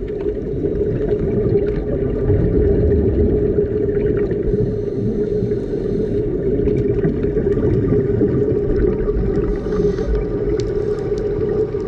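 Underwater sound during a scuba dive: a steady low drone and hum, with short hissing breaths through a scuba regulator about four and a half seconds in and again near ten seconds.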